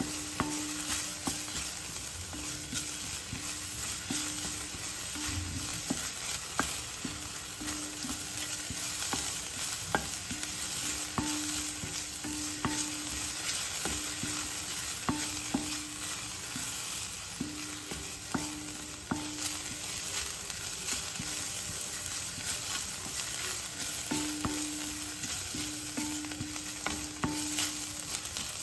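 Chopped onion and green chillies frying and sizzling in oil in a stainless steel pan while a spatula stirs and scrapes them across the pan, with frequent light taps and scrapes on the metal. The onions are being sautéed towards golden brown.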